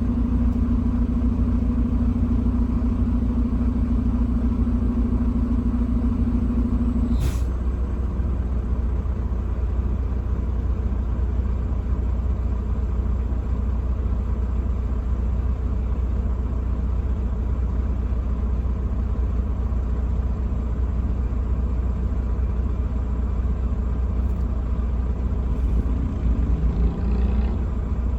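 Truck driving on the highway: steady low engine and road rumble. A steady hum stops abruptly with a sharp click about seven seconds in, and a short rising engine note comes near the end.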